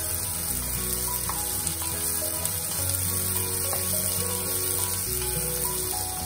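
Sliced onions frying in hot oil in a small nonstick pan: a steady sizzle.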